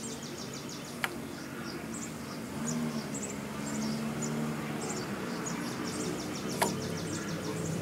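Insects chirping in fast repeated trills over a low steady hum, with two light clicks from small carburetor parts being handled, about a second in and again near the end.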